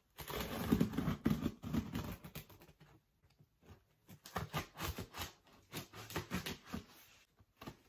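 Scissors cutting and scraping through packing tape on a cardboard shipping box: irregular scratching and scraping, with a short pause about three seconds in.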